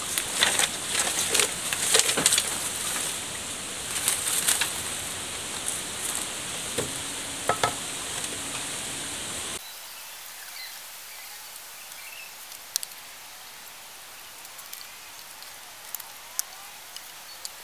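Split bamboo strips clicking and rustling against each other and the dry leaf litter as they are handled and bound with thin fibre. A steady high hiss under the first half cuts out abruptly a little past halfway, leaving fainter, scattered clicks.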